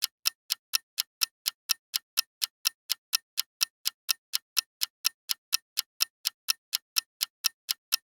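Countdown-timer sound effect ticking steadily at about four even ticks a second while the quiz question waits for an answer.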